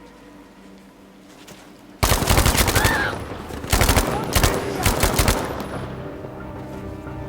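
Rapid automatic gunfire from a video game, starting suddenly about two seconds in and going on in quick bursts.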